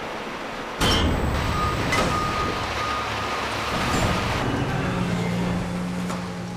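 Wheel loader's diesel engine running steadily while it works the waste piles, with a low hum and the broad din of the machinery. The sound jumps louder about a second in, and there are a few sharp knocks.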